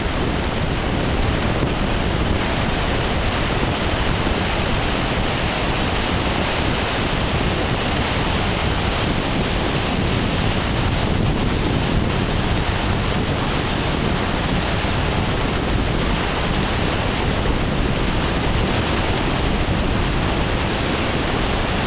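Storm wind and heavy rain in a steady, loud rush of noise that neither builds nor breaks.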